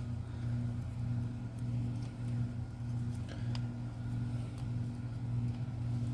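A steady low hum runs throughout, with a few faint clicks over it.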